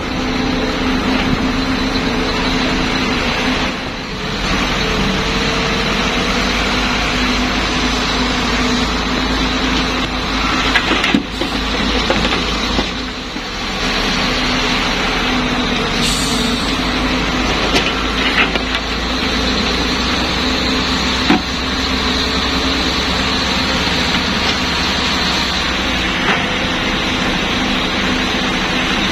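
Cat 320B hydraulic excavator's diesel engine running steadily under load as it digs and swings, with a few sharp knocks of rock or bucket.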